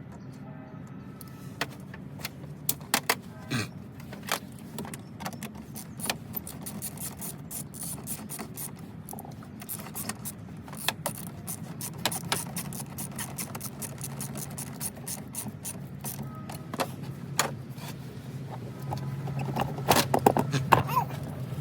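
Hand tools and loose metal and plastic engine parts clicking, clinking and knocking at irregular intervals as the intake and hoses are taken off a car engine, over a steady low hum. The loudest knocks come near the end.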